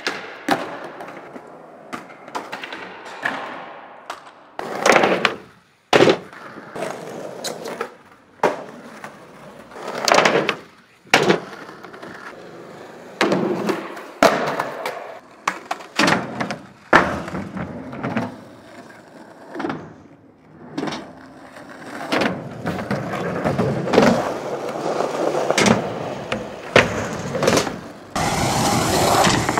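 Skateboard wheels rolling on smooth concrete, cut by many sharp clacks of the board popping, landing and striking obstacles.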